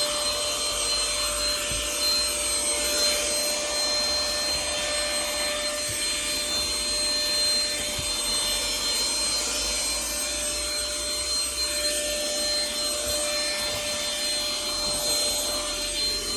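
Baseus handheld cordless car vacuum running steadily, a constant motor whine over the rush of suction air, with a few faint knocks as it is worked around the car's interior.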